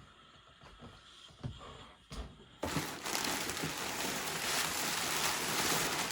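A few faint knocks, then a loud, steady hiss of noise that starts abruptly about two and a half seconds in and holds.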